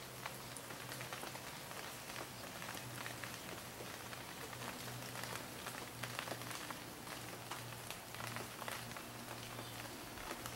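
Rain falling: a steady hiss dotted with many small ticks of drops striking surfaces.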